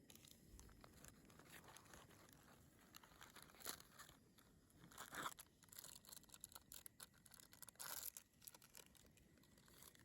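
Faint rustling and crinkling with scattered light clicks, and a few short, louder scratchy rustles.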